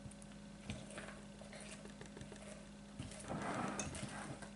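Spatula folding thick almond batter in a glass mixing bowl: faint soft taps and scrapes against the glass, a little louder for a moment near the end.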